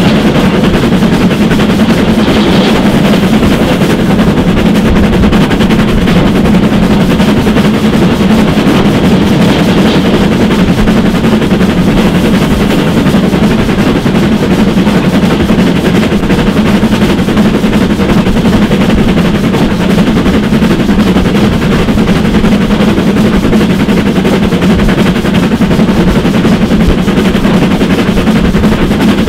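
GWR 4575-class 'Small Prairie' 2-6-2T tank engine No. 5521 (running as L.150) working hard as a banker: a fast, unbroken run of loud exhaust beats from its chimney, heard close up, with the clatter of the train running at speed.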